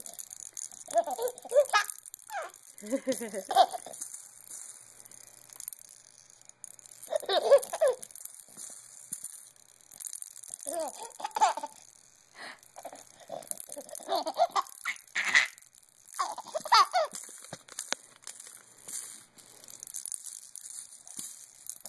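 A baby laughing and giggling in repeated short bursts, with the beads of a plastic baby rattle shaken faintly.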